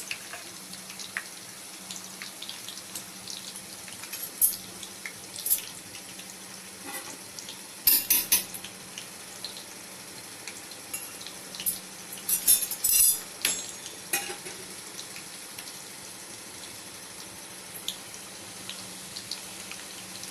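Boiled potato chunks frying in hot oil, a steady sizzle, with a few sharp clinks and scrapes of a utensil against the pan, the loudest about eight seconds in and again around twelve to thirteen seconds.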